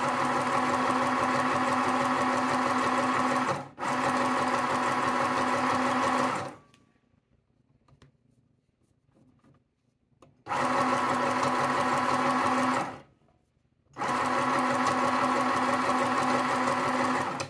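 Small Janome New Home travel sewing machine stitching fabric at its one fixed medium speed, a steady hum. It runs in four spells of a few seconds each, stopping and restarting as the foot pedal is let up and pressed again, with a longer pause in the middle.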